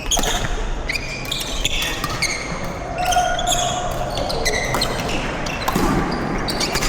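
Badminton rally: rackets striking the shuttlecock in a string of sharp hits, with shoes squeaking sharply on the court floor several times.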